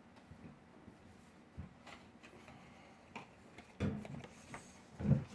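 Light clicks and knocks of a strop and tools being handled and set on a tabletop, a few scattered taps at first and louder knocks in the last second and a half.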